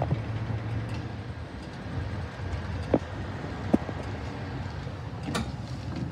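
Steady low vehicle rumble, with a sharp click about three seconds in, another just before four seconds, and a louder knock about five seconds in.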